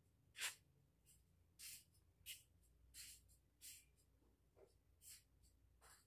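Faint, brief scrapes and rubs from hands handling small metal coaxial cable connectors, an RF connector and a joiner, about eight short scrapes spread through a near-quiet room.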